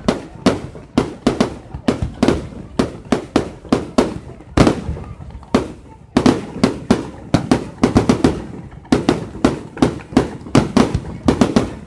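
Fireworks going off close by in a rapid string of sharp bangs, two to four a second, with a couple of brief pauses.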